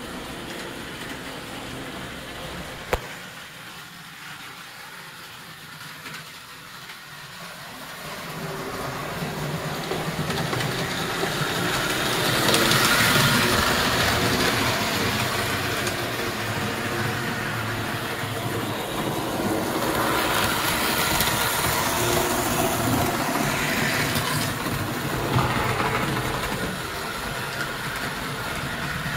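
American Flyer #300 S-gauge steam locomotive running steadily on the track, pulling one passenger car: motor whir and wheels clattering on the rails. The sound grows louder as the train comes close, loudest about twelve seconds in, then eases off near the end. A single sharp click comes about three seconds in.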